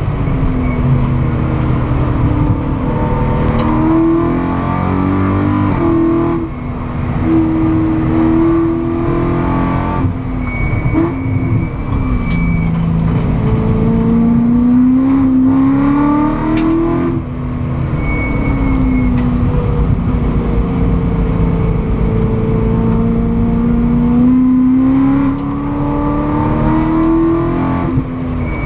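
BMW M3 GT4 race car's V8 engine heard from inside the stripped cabin, pulling hard through the revs on a circuit lap. The pitch climbs steadily and drops sharply at each upshift, with several lifts off the throttle for corners.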